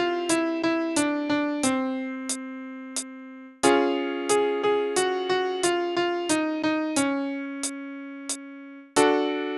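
Piano playing a descending five-note warm-up scale for singers: quick runs of notes stepping down over a held low note, each ending on a long note. Between runs come two sharp ticks, then the pattern starts again a half step higher.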